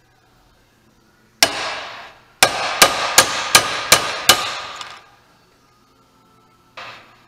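A hammer strikes a steel pin punch, driving the ground-off pins out of a link of 530 motorcycle chain clamped in a vise; each blow rings metallically. There is one blow, then a run of six quick blows about three a second, then a lighter blow near the end.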